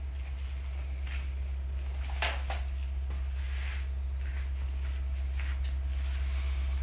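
A steady low hum with scattered light clicks and rustles over it, the clearest about two seconds in.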